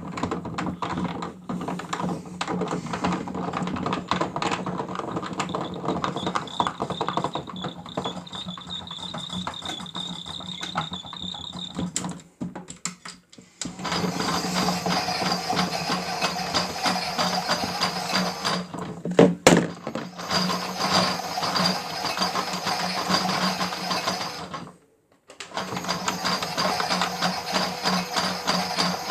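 Toy washing machine's small electric motor turning the drum, a steady hum with plastic rattling and clicking, stopping briefly twice and starting again, as in the tumbling stage of a wash cycle.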